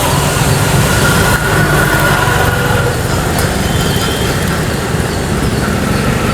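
Steady rumble of busy road traffic, with a faint high whine for a couple of seconds early on.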